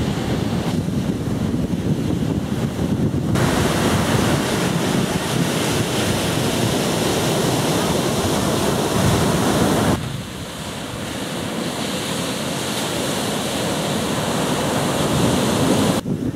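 Ocean surf breaking, with wind buffeting the microphone: a steady rushing noise with no pitched sounds. Its level and tone jump abruptly a few times, at about 3, 10 and 16 seconds in.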